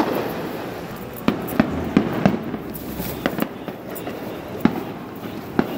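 Fireworks going off at street level: a bang at the start, then about eight sharp, irregularly spaced cracks and pops.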